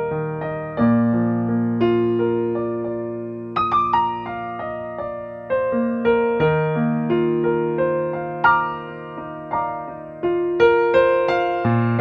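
Background music on a keyboard: struck notes and chords that ring and fade, with a slow melody over them.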